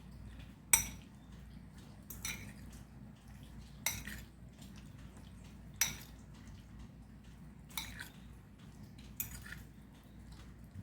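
Cutlery knocking and scraping against a bowl while a soft breadfruit salad is mixed, with six sharp clinks about every one and a half to two seconds.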